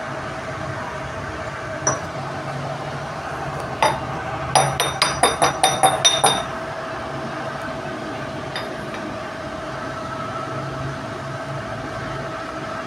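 Metal parts clinking: a couple of single sharp clinks, then a quick run of about eight ringing metallic taps over two seconds, over a steady background hum.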